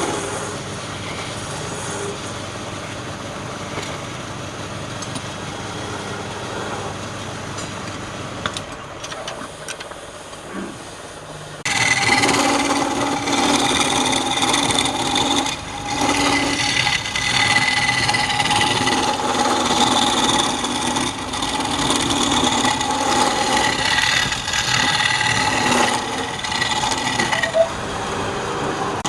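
Woodturning on a lathe: a turning tool scraping and cutting spinning wood, with a steady noise that jumps abruptly louder about twelve seconds in and carries a steady whine from then on.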